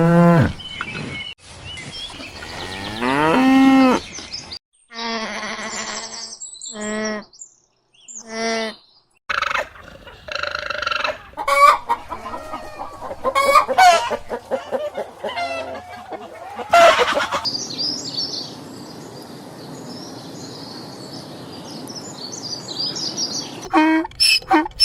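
Chickens: a rooster crowing and hens clucking in a string of separate calls, then a dense run of quick clucks. Near the end, high chirps over a steady hiss.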